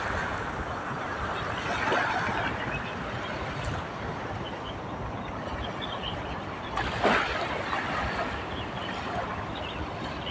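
Small waves washing and lapping against the shore, a steady wash of water with a louder surge about two seconds in and another about seven seconds in.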